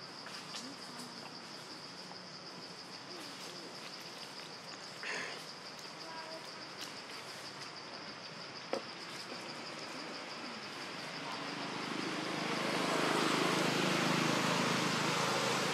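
Steady, rapidly pulsing insect drone, with a brief rustle about five seconds in and a sharp click near nine seconds. From about eleven seconds a motor vehicle's engine noise swells and becomes the loudest sound.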